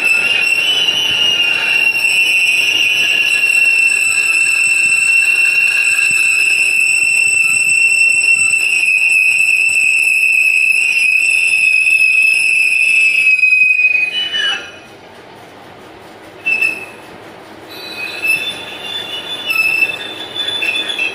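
Lathe cutting tool squealing against a large metal disc being turned: a loud, steady, high-pitched screech that cuts off about 14 seconds in, then comes back in shorter squeals near the end.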